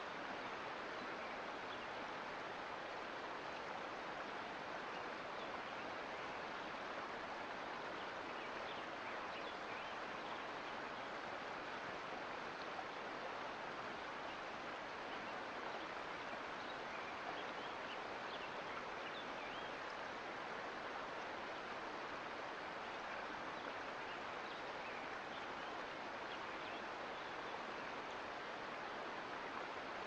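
Mountain creek flowing: a steady rush of water with small splashes scattered through it.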